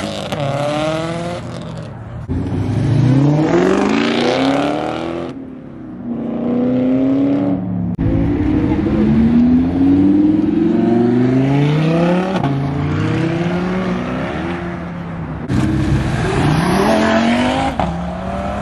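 Cars accelerating hard away from a car meet, one after another. Each engine's pitch climbs steadily and drops back at each upshift before climbing again.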